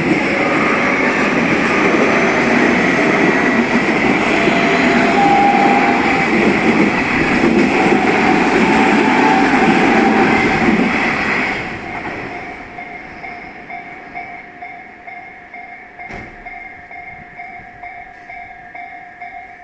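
A ten-car Tobu Tojo Line electric train passing over a level crossing, loud and close, while the crossing's warning bell rings in a steady repeating pattern. The train noise falls away about eleven to twelve seconds in, leaving the bell ringing on its own.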